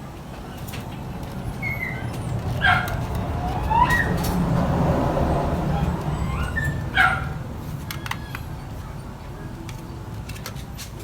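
A dog barking twice, sharp calls about a quarter of the way in and again past the middle, with a few fainter calls between, over a low steady rumble that swells in the middle.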